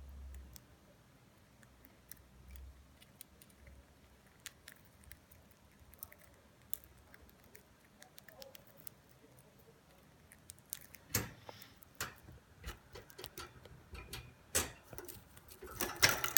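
Budgerigar pecking and nibbling: irregular small clicks and taps of its beak, sparse at first, then louder and busier over the last five seconds.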